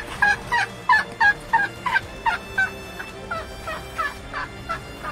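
Asian elephant calf giving a rapid string of short, high chirping calls, about three a second, that weaken towards the end. It is calling its blind mother to follow it.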